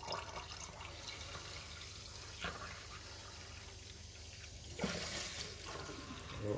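Tap water running steadily into a container of muddy tumbled opal slurry in a stainless-steel sink, frothing as it fills and spilling over the rim. It grows louder for a moment about five seconds in.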